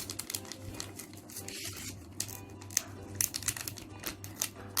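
Blind-bag packets being crinkled and torn open, an irregular run of sharp crackling ticks.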